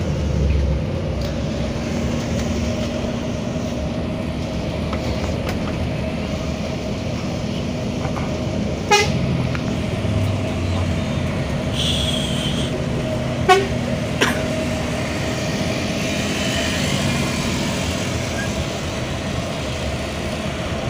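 Cabin sound of a moving coach bus: steady engine and road hum, with a few short horn beeps around the middle.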